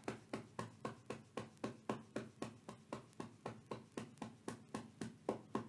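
Fingertips tapping steadily on the side of the ribcage under a raised arm, through a sweater, about five light taps a second: the under-arm point of an EFT tapping round.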